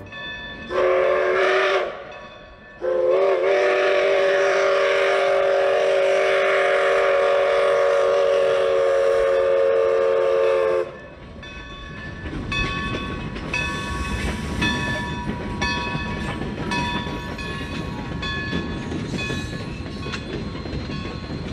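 Steam locomotive whistle sounding a short blast, then a long one of about eight seconds, several notes at once. After it, freight cars roll by on the rails with a bell ringing steadily.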